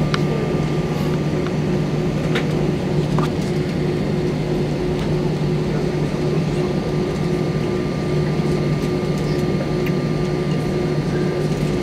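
Cabin noise of an Airbus A320 taxiing: the jet engines running at low taxi power with the cabin air, a steady drone with a constant low hum under it.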